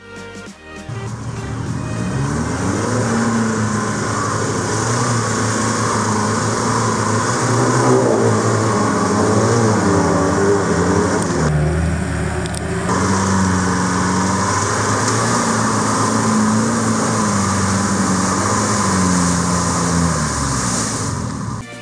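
Four-wheel-drive ute engine working hard and revving up and down as it drives through a deep, muddy, water-filled track, with the wash and splash of water and mud. The splashing briefly drops away about halfway through.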